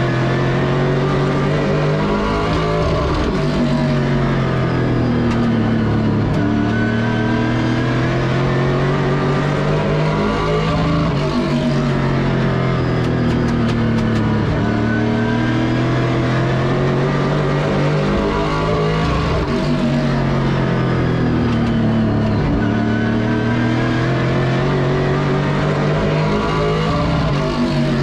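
Pro Late Model race car's V8 engine heard from inside the cockpit, running hard on track, with its pitch rising and falling about every three to four seconds as the driver gets on and off the throttle.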